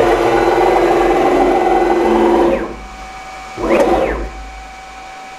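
CNC router's closed-loop stepper motors driving the gantry in a jog move: a pitched whine rises as the axis speeds up, holds steady for about two and a half seconds and falls away as it stops, then a second short move rises and falls about three and a half seconds in.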